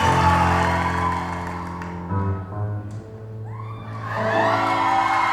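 Recorded music starts suddenly over a hi-fi demo system's loudspeakers, with loud sustained bass and chord notes. Gliding high tones come in about three seconds in.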